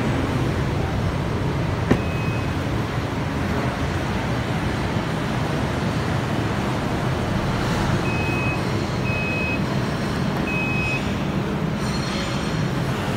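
Aftermarket electric tailgate lift on a Toyota Prius Plus in operation: a click and a short high beep as it starts, then three short beeps at the same pitch a few seconds later. A steady low hum runs under it.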